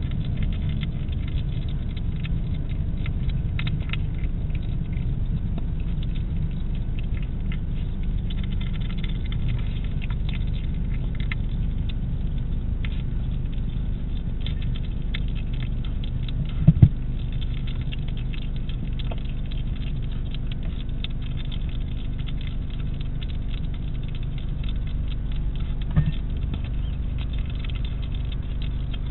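European hedgehog eating from a dish: a dense run of small clicks and crunches of chewing over a steady low hum. A louder knock comes a little past halfway, and another near the end.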